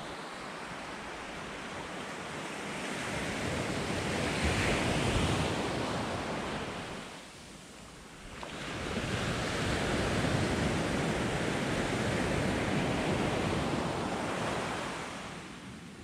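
Small waves breaking and washing up a sandy beach in two surges of surf. The first builds to a peak about five seconds in and ebbs to a short lull. The second rises again and holds for several seconds before fading near the end.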